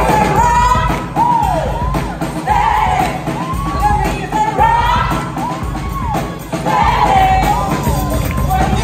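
Live band playing a song with women singing lead and backing vocals, over electric guitar, bass and a drum kit. The singing line swoops up and down in repeated arcs, about one a second.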